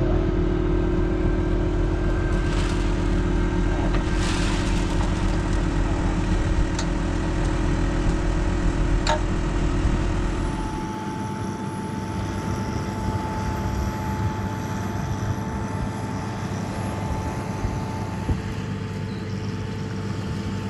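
Tractor engine running steadily. About halfway through, the deep low rumble drops away and a steady high whine takes over.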